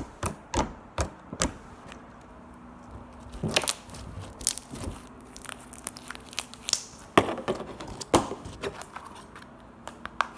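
Pink homemade slime squeezed, pressed and stretched in the hands, giving irregular crackling pops and clicks.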